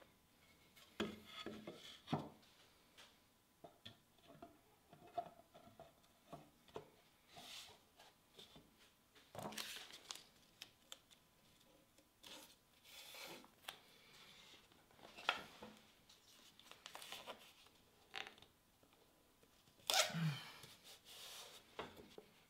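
Green painter's tape being pulled off the roll and stretched across a walnut miter joint, in a series of short ripping rasps, the loudest near the end. Light knocks and rubs of the wooden case sides being handled come in between.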